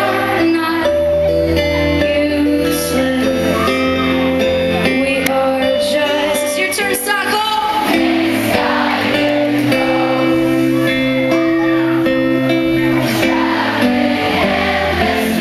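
Live acoustic song: strummed and picked acoustic guitars with a female lead singer, in a large hall.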